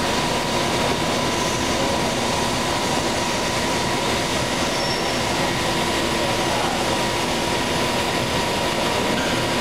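Palmary OCD-4265 CNC cylindrical grinder running: an even mechanical hiss and hum with a steady whine over it.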